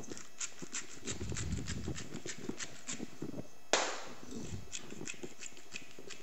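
Salt and pepper being dispensed from spice containers over acorn squash halves: a run of quick dry clicks, several a second, with one louder knock a little past halfway, as of a container set down on a wooden cutting board.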